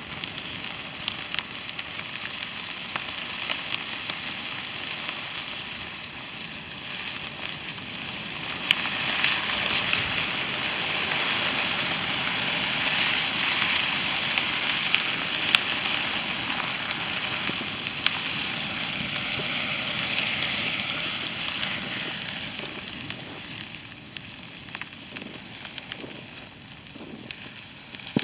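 A 2016 New Holland T175 tractor and its tyres burning: a steady hiss of flames with scattered sharp crackles and pops. The fire grows louder from about a third of the way in and eases again near the end.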